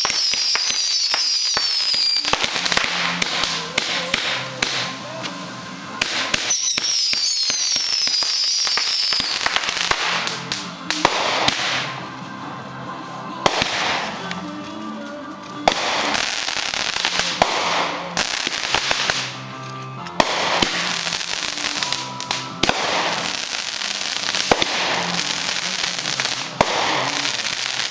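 Consumer fireworks finale: a continuous barrage of bangs and crackling from aerial shells and cakes going off in quick succession. Whistling effects fall in pitch near the start and again about seven seconds in.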